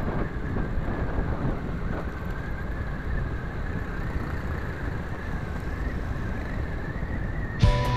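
A motorcycle on the move: engine running under a steady rush of wind and road noise. Music starts abruptly near the end.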